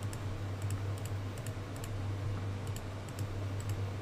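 A run of computer mouse clicks, many as quick press-and-release pairs, about two a second, as symbols are clicked one after another. A steady low hum lies under them.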